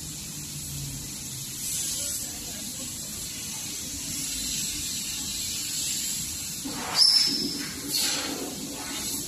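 Steady hiss and low hum from a running 1500 W fiber laser welding-cleaning-cutting machine, broken by a sudden loud burst with a brief high tone about seven seconds in and a second burst about a second later.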